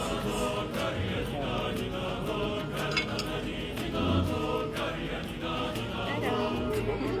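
Several voices singing a Georgian folk song together in harmony.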